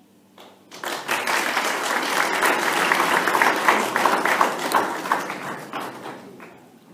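Audience applauding: many hands clapping together, starting about a second in and dying away near the end.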